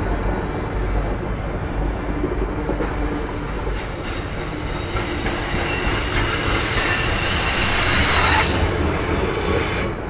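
Whistler Mountaineer passenger coaches rolling past on curved track, steel wheels rumbling on the rails with high, thin squealing tones. The squeal and hiss grow loudest about eight seconds in, then ease.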